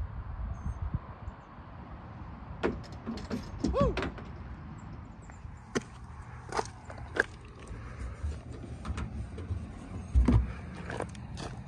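A mini golf disc striking the hanging chains of a raised lighthouse basket, a jangling clatter about three seconds in. Later come scattered knocks and a louder clatter near the end as the disc is reached for through a small opening in the lighthouse's side.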